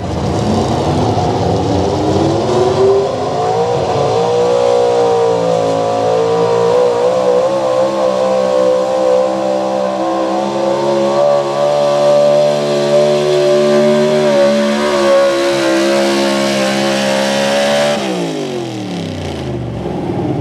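Open-class gasoline engine of a Ford 4x4 pulling truck at full throttle, dragging a pulling sled. The revs climb over the first few seconds, hold high with a slight waver for most of the pull, then fall away near the end as the driver lets off.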